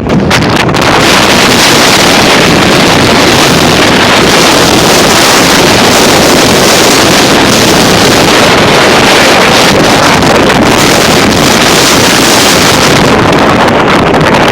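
Strong windstorm gusts blasting straight into the microphone: a loud, unbroken rush of wind noise that swells in the first second and then holds steady.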